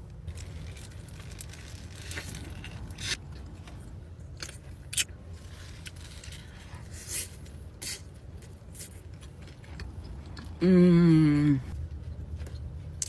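Food being handled and eaten: scattered rustles, clicks and crunches over a steady low hum, then near the end a loud, wavering hum from a person's voice lasting about a second.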